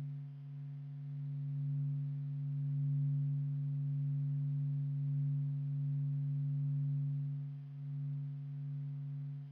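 Space data sonification: a steady, low electronic drone of one held pitch with a fainter overtone above it. It swells gently through the middle and dips briefly near the end.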